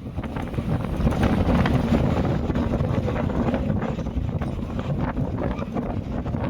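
Strong wind buffeting the microphone: a loud, unbroken rush of wind noise, heaviest in the low range and full of small crackles.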